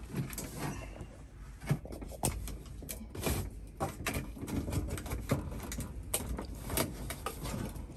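Irregular knocks, clicks and scrapes as a compact clothes dryer's metal casing is maneuvered back into its cabinet and its foil vent hose is handled behind it.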